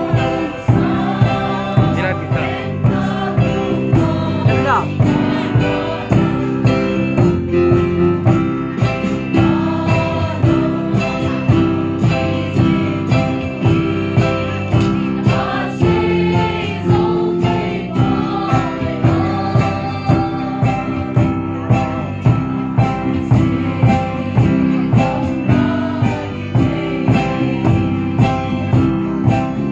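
Several women singing a hymn together, accompanied by a large wooden barrel drum struck in a steady beat.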